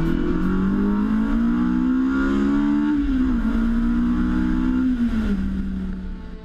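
Datsun 510's swapped-in Honda S2000 four-cylinder engine accelerating under load, its note climbing steadily, dipping briefly about three seconds in, climbing again, then dropping in pitch and fading near the end.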